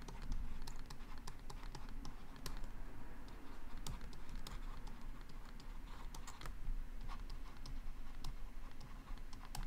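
Stylus tapping and scratching on a tablet screen during handwriting: a run of light, irregular clicks over a low steady background hum.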